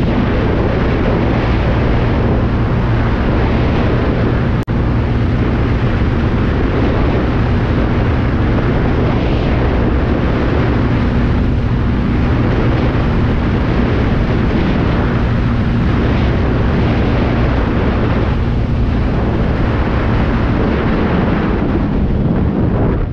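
Honda CB300 single-cylinder engine running steadily at high road speed, a constant engine drone under wind noise on the microphone. Near the end the rider eases off and the engine note drops away.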